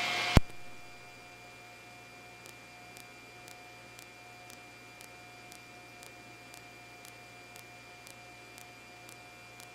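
Police radio channel between transmissions: the last transmission cuts off with a click, leaving a faint steady hum and hiss with soft ticks about twice a second.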